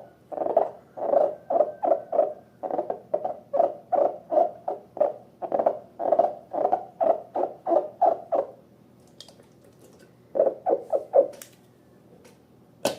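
Slime being squeezed and worked by hand, a quick series of short wet squelches at about three a second that stops after about eight seconds, then a short run of a few more and a single sharp click near the end.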